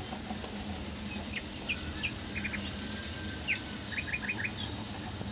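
Small birds chirping: short chirps, some single and some in quick runs of three or four, over a steady low background hum.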